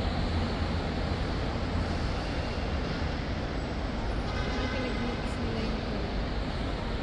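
Steady outdoor ambience of an airport forecourt: an even low rumble and hiss, with faint voices.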